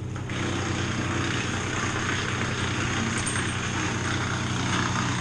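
An engine running steadily, a low hum with a hiss over it that grows louder just after the start.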